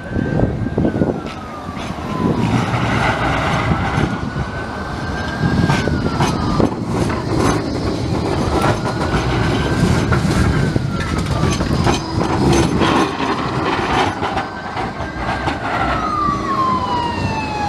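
An emergency-vehicle siren in a slow wail, rising and falling about every four to five seconds, over the steady low rumble of a Flexity 2 tram passing close by on the rails.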